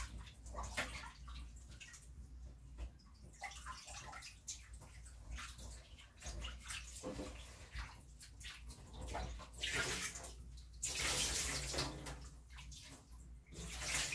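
Water splashing and running in a kitchen sink as things are washed by hand with rubber gloves, in uneven splashes, with the tap running harder for a few seconds near the end.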